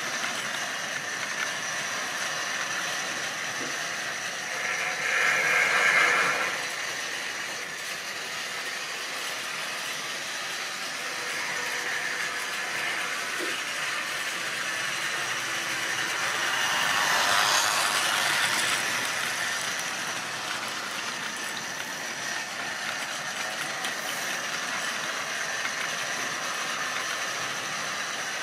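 Model railway train of goods wagons running on the layout's track: a steady rattle and clatter of small wheels on the rails, swelling louder twice, about five seconds in and again past the middle.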